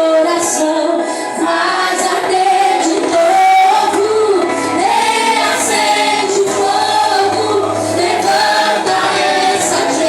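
A Christian worship song sung by female voices with a choir, over sustained instrumental backing.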